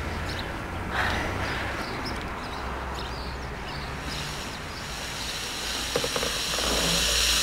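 Outdoor ambience with a steady low rumble and a few faint bird chirps. From about four seconds in, a hiss rises and grows louder toward the end.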